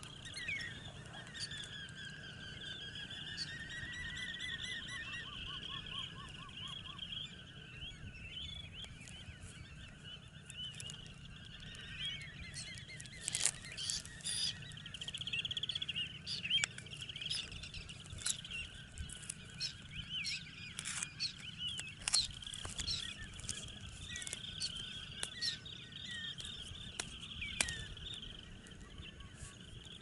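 A flock of wading shorebirds calling: overlapping chattering and trilling calls, with many short sharp calls scattered throughout, over a faint low background rumble.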